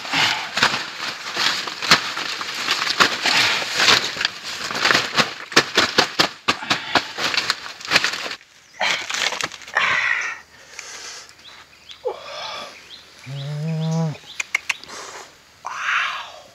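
Large banana leaves rustling and crinkling as they are handled and spread by hand, a dense crackle for about eight seconds. After that it is quieter, with scattered short rustles and a brief vocal 'ooh' from a man about 13 seconds in.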